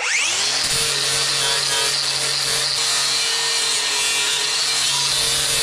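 Electric power tool motor spinning up to speed at the start, its pitch rising over about half a second, then running steadily with a strong high hiss.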